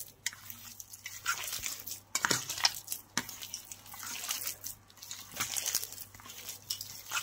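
A hand squeezing and mashing milk-soaked bread pieces with a raw egg in a stainless steel bowl, in irregular short squishes.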